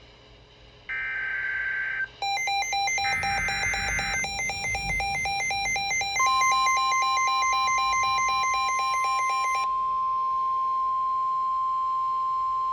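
Emergency Alert System broadcast tones for a tornado warning. First come short bursts of screechy data tone, then a fast, harsh alternating beep. From about six seconds in, a steady single-pitch warning alarm tone holds.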